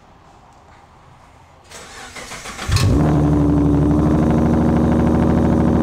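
2014 Ford Mustang's 3.7-litre V6 being started: the starter cranks for about a second, the engine catches about three seconds in and settles straight into a loud, steady idle.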